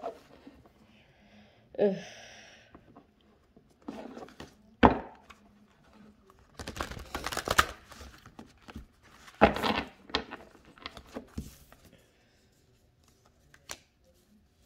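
Tarot cards being shuffled and handled, in irregular bursts with a few sharp knocks.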